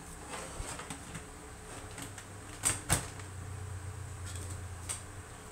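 A mains plug and wall socket being handled: two sharp clicks about a quarter second apart about halfway through, a faint low hum for a couple of seconds around them, and a lighter click near the end.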